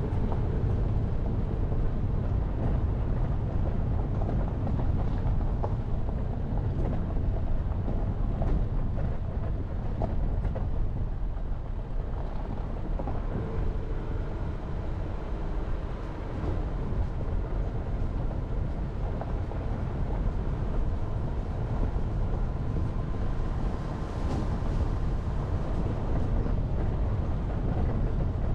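Jeep Renegade driving: a steady low rumble of engine and road noise, easing slightly about twelve and sixteen seconds in.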